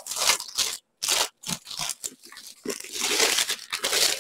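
Thin clear plastic sleeve crinkling and rustling as it is pulled off a rolled diamond painting canvas, in irregular bursts with a brief pause about a second in.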